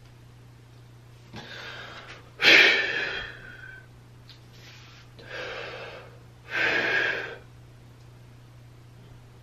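A man's heavy breaths while flexing and holding bodybuilding poses: four forceful breaths in and out, the second about two and a half seconds in the loudest, with a short pause between each.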